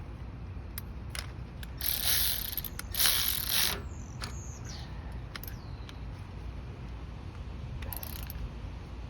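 Ratchet clicking in short bursts while driving in the screw that holds the carburetor float bowl on, with scattered single clicks and a brief falling metallic squeak after the loudest bursts.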